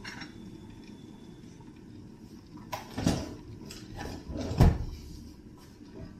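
Kitchen knocks and clunks: a knock about three seconds in, a louder clunk about a second and a half later, and a few lighter clicks around them.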